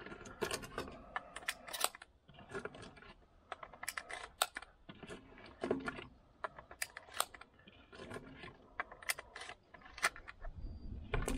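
Shotgun shells and a shotgun's action being handled between shots: an irregular run of small metallic clicks and clacks.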